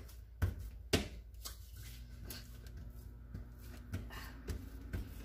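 Hands patting and pressing bread dough flat on a plastic board: a few soft slaps and taps, most of them in the first second and a half, with a low steady hum that starts about two seconds in.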